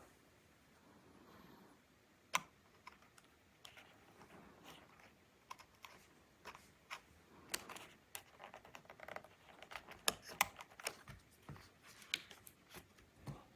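Laptop keyboard keys clicking in an irregular run of sharp clicks, sparse at first and coming more often from about halfway through.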